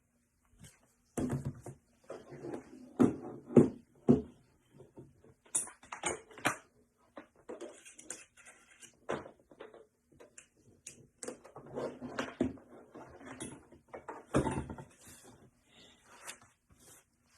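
Objects being handled on a table: irregular knocks, taps and rustles, the loudest knocks about three to four seconds in and near the end, over a faint steady hum.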